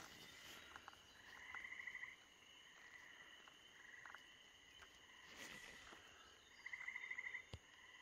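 Frogs calling, faint: two short, fast-pulsed trills, each under a second, one about a second in and another near the end, over a faint steady chorus of high calls.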